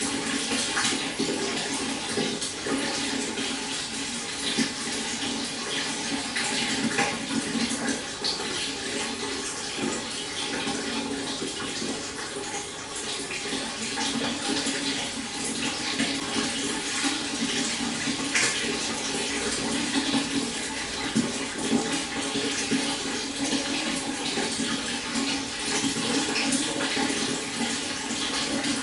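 Stream water flowing steadily: a continuous rush with irregular small gurgles and splashes.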